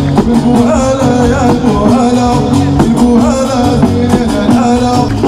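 Live concert music played loud through a stage sound system: a voice singing over a band with a steady beat and bass.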